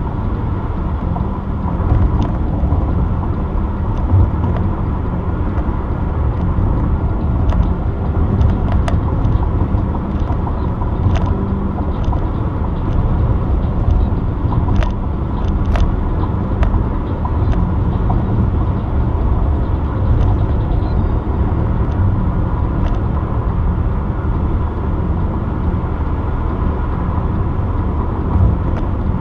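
Steady road noise of a car in motion, heard from inside the cabin: a low rumble of tyres and engine with a faint steady whine, and light clicks now and then.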